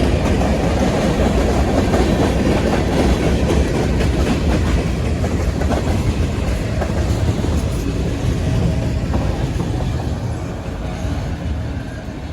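A passing train's cars rolling by on the rails, a steady noise of wheels on track that slowly fades over the last few seconds as the end of the train goes by.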